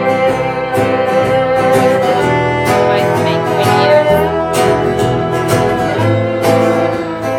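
A live band playing, led by a strummed and plucked guitar, with held notes sounding over the strumming.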